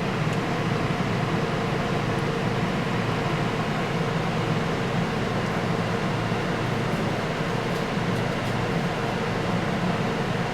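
Steady whirring hum of a running fan, with a faint steady tone over it.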